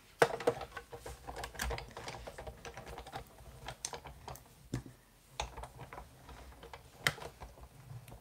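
Hand-cranked Sizzix Big Shot die-cutting machine being turned, its plate sandwich feeding through the rollers as a metal die cuts the paper, with irregular clicks and ticks throughout, the sharpest about a quarter second in.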